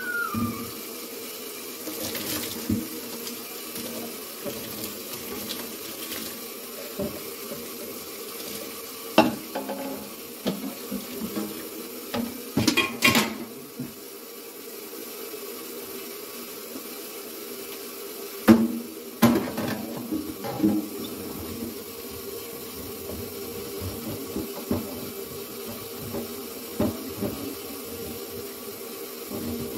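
Kitchen tap running steadily into a sink while a wire refrigerator shelf is washed, with scattered clanks and clatter as the metal shelf is handled in the basin; the loudest knocks come about a third of the way in and again a little past the middle.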